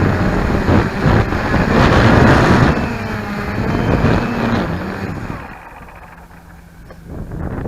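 Cheerson CX-20 quadcopter's motors humming with wind buffeting the onboard keychain camera's microphone, the motor pitch shifting up and down; the sound drops much quieter about two-thirds of the way through, leaving a faint steady hum.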